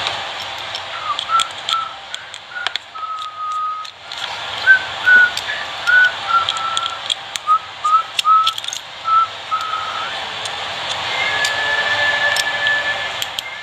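A person whistling a tune in short notes, ending on one longer held note, over a steady hiss, with scattered light clicks from handling small phone parts.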